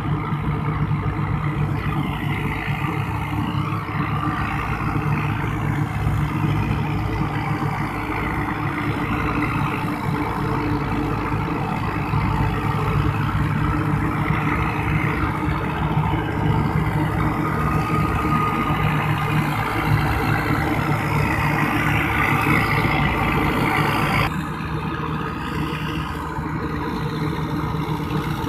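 Tractor diesel engines running steadily under load while driving straw choppers, with the dense rushing, clattering noise of straw being chopped and blown into trailers. The higher chopping noise drops away abruptly near the end, leaving mainly the engine drone.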